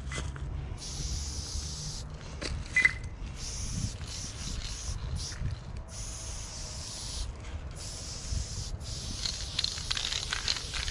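Aerosol spray-paint can hissing as lines are sprayed, in several bursts of varying length that stop and start again. One short click comes about three seconds in.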